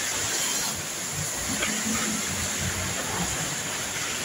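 Steady rushing noise of typhoon wind, even and unbroken, with no distinct events standing out.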